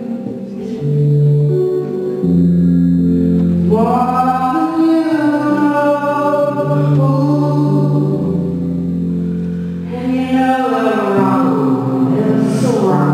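Live song: a woman singing long, sliding vocal phrases over sustained low chords.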